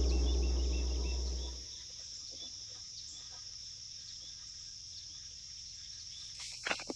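A low gong-like tone dies away over the first second and a half, leaving a steady high chorus of crickets and other insects with a few short bird chirps. A couple of brief knocks come near the end.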